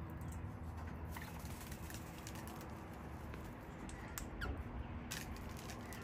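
Australian king parrots at close range: scattered sharp clicks and taps, with a brief falling call about four and a half seconds in, over a steady low hum.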